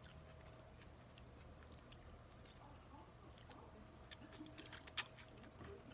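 A person chewing food close to the microphone: faint, with small wet mouth clicks that grow more frequent in the second half, the sharpest about five seconds in.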